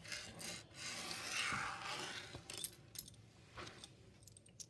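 Small plastic building bricks being handled off to the side: a rubbing rustle lasting about two seconds, then a few light clicks.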